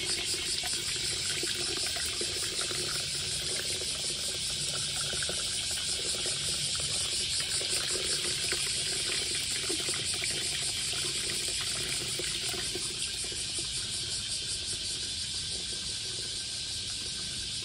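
Water pouring steadily from a spout into a basin, a continuous even hiss.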